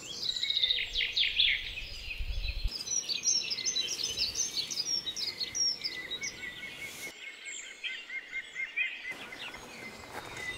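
Small songbirds singing and chirping: rapid, high, quick notes throughout, with a fast run of repeated notes a little past the middle.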